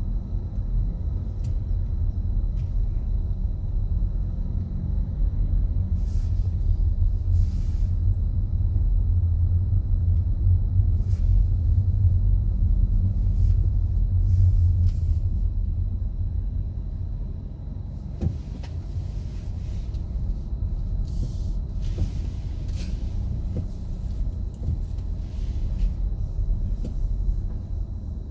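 City snow-clearing machine working the street: a continuous low engine rumble that is loudest in the middle, eases off about two-thirds of the way through, then carries on.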